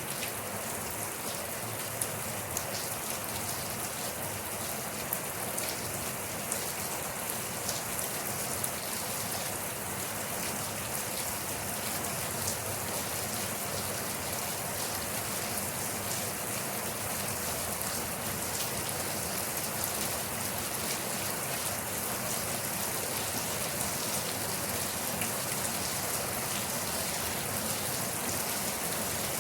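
Steady rain falling, an even hiss with many small drop ticks spattering on a surface.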